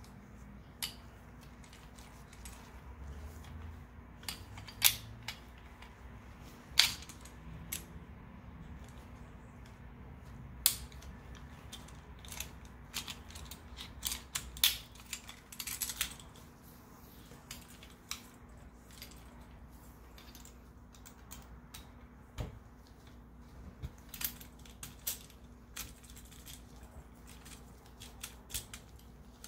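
Scattered metal clicks and clinks of a Colt Series 70 .45 automatic being field-stripped by hand: steel parts sliding and knocking together, with a few sharper clicks, the loudest about 5, 7 and 11 seconds in.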